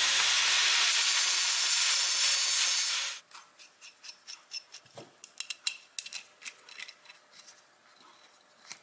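Angle grinder cutting into a steel coupler nut spinning in a mini metal lathe's chuck, used as a makeshift parting tool: a loud, steady grinding hiss that cuts off suddenly about three seconds in. Then a run of small metallic clicks and scrapes as the threaded steel part is turned by hand into a load cell.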